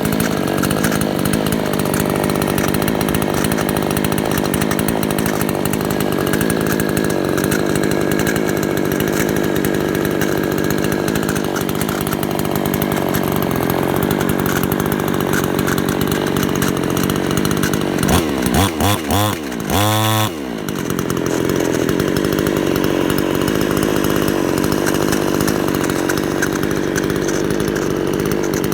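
An engine running steadily with a rattling noise. About two-thirds of the way through it is revved in a few short blips, then settles back to its steady run.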